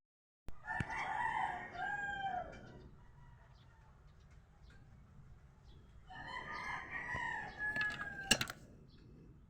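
A rooster crowing twice, two long drawn-out calls a few seconds apart, with a sharp click near the end of the second.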